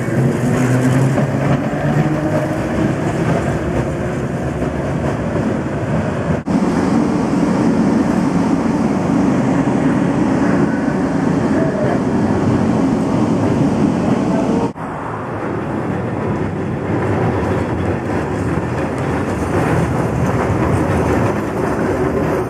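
900-series Perley Thomas electric streetcars passing close by, their steel wheels rumbling on the rails and traction motors whining as the pitch glides up and down. The sound breaks off briefly twice as one passing car gives way to the next.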